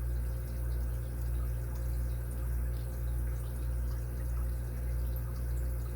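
Faint, irregular small clicks and scrapes of a lock pick working the pins of a 5-pin dimple bike lock, over a steady low hum.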